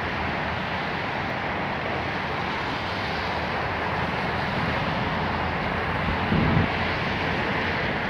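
Steady outdoor city ambience, a wash of distant traffic noise, with a brief low thump about six and a half seconds in.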